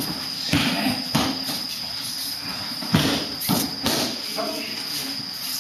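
Aikido partners training on tatami mats: a series of irregular thuds and slaps from falls, stamping feet and grabs, with the rustle of cotton training uniforms.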